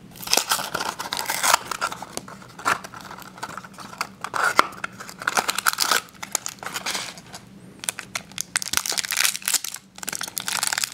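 Blind-box foil wrapper being crinkled and torn open by hand to free a mini figure: a dense, irregular run of crackles and rustles.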